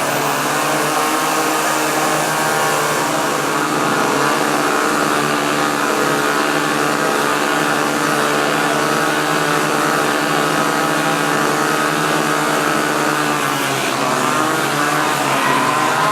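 Small two-stroke chainsaw engines running steadily.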